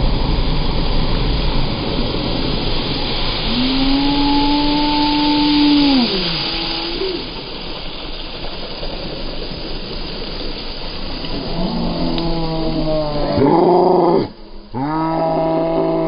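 Side-by-side UTV's engine running as it ploughs through a deep mud puddle, with the rush and spatter of muddy water thrown up. Riders let out a long rising-and-falling "woo" yell about four seconds in, and more whooping near the end.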